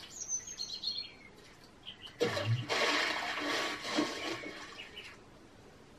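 Cartoon splash sound effect heard through a TV speaker: a short high falling whistle, then about two seconds in a sudden splash into water with a low thud that fizzes away over the next two to three seconds.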